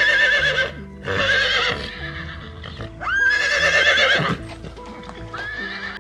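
Repeated loud, wavering animal calls, three of about a second each and a fainter one near the end, the third sliding up in pitch as it starts, over background music.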